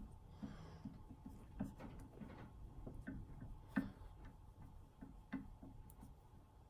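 Faint, irregular small clicks and taps of steel parts being handled, as greased bearing caps are fitted onto a steering-shaft universal-joint cross. The sharpest click comes a little before four seconds in.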